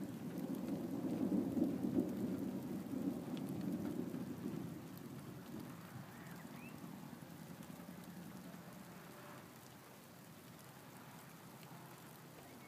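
Distant thunder rolling, a low rumble that swells to its loudest about two seconds in, then dies away over the next few seconds.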